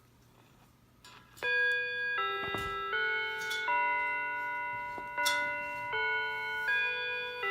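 A chiming clock playing a melody of ringing bell-like notes, a new note about every three-quarters of a second, starting about a second and a half in.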